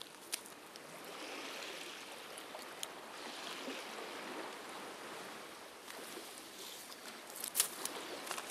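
Small waves lapping and washing on the shore, swelling and fading every second or two, with a few light clicks, the sharpest near the end.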